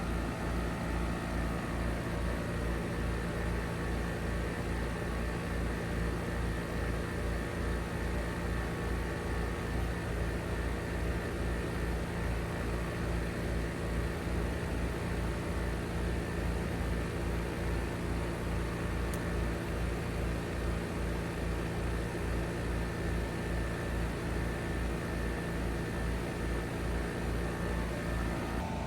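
Outdoor unit of a 2022 3-ton Trane XR14 heat pump running steadily: compressor hum with the condenser fan, a fast even low pulsing beneath it.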